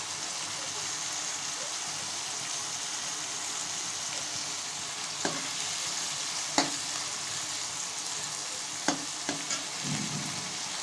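Brinjal pieces and rohu fish fat sizzling steadily in mustard oil in a metal wok. A metal spatula clicks and scrapes against the pan a few times in the second half.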